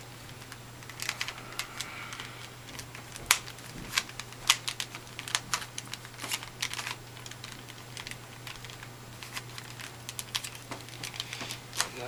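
A well-greased standard Rubik's Cube's plastic layers clicking as they are turned quickly by hand, in uneven runs of sharp clicks, over a low steady hum.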